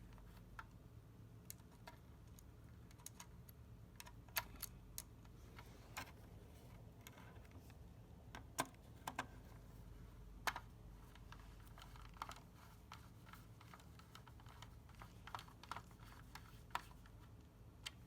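Scattered light clicks and taps of small hardware being handled and seated while an SSD card is fitted into a computer motherboard, over a faint steady hum. The clicks are irregular, with a few sharper ones about four, eight and ten seconds in.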